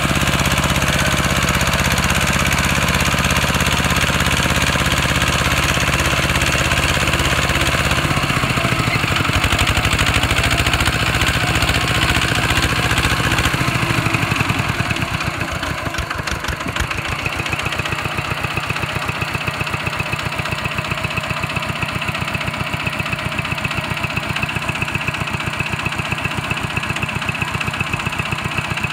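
Kubota walking tractor's single-cylinder diesel engine running hard under load as its wheels spin in soft soil. About halfway through it drops to a steady idle with an even, regular beat.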